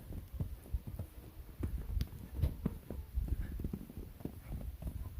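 Footsteps walking through snow: irregular soft thumps, a few a second.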